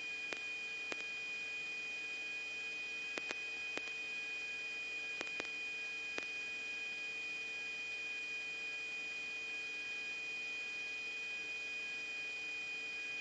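Faint steady electronic tone and hum of an open radio or intercom channel, with a few soft clicks in the first several seconds.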